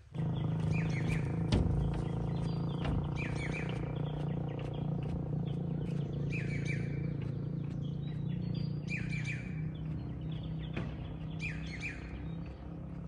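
Songbirds singing a short repeated phrase of falling chirps, about every two to three seconds, over a steady low hum, with a few sharp knocks.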